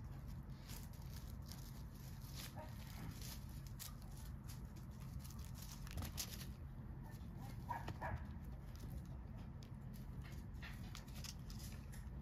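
Faint rustling and light clicks of a cat moving through dry leaves and grass over a low steady rumble, with brief faint animal calls about two and a half and eight seconds in.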